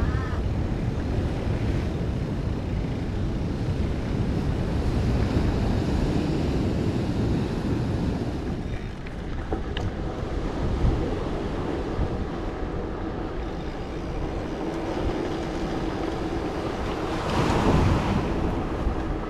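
Wind buffeting a GoPro's microphone as the mountain bike rolls along, a continuous low rumbling rush. A steady low hum comes in past the middle, and a louder rush swells near the end.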